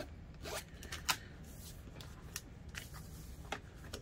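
Scattered light clicks and taps as a clear acrylic quilting ruler and a pen are handled and set down on vinyl on a sewing table, the sharpest about a second in.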